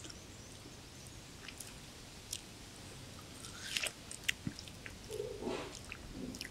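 A purple-faced langur biting and chewing watermelon: scattered wet crunches and smacking clicks, loudest about four seconds in, with a couple of short, low, soft sounds near the end.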